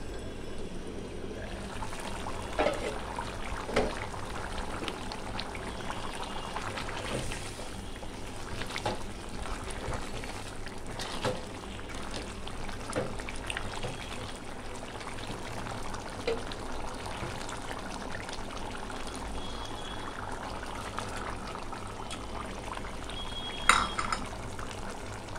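Aluminium cooking pots, lids and utensils clinking and knocking now and then, about a dozen times, over a steady low hum. The loudest clink, near the end, has a brief metallic ring.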